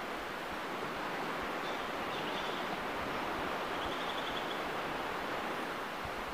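Steady wash of surf on a beach. Faint high trills come about two seconds in and again around four seconds.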